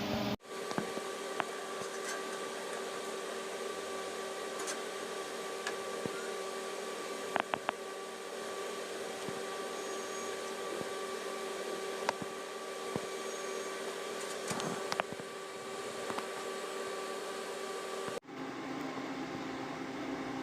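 A steady machine hum with a constant tone, and a few light clicks and taps, including three quick clicks about seven and a half seconds in. The sound changes abruptly just after the start and again near the end.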